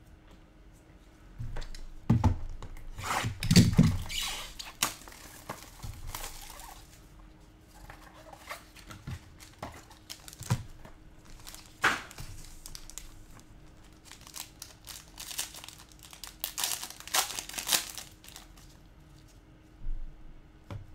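Trading card packaging being torn open and crinkled, in several noisy bursts with a few light knocks between them. The longest burst is a few seconds in, a sharp one comes about halfway, and a cluster follows near the end.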